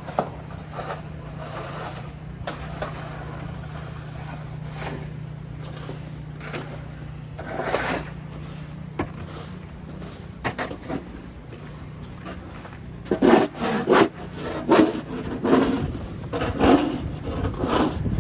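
Footsteps crunching in fresh, deep snow, scattered at first, then louder and in a regular walking rhythm of about two steps a second from about two-thirds of the way through. A low steady hum sits underneath and fades out as the steps grow louder.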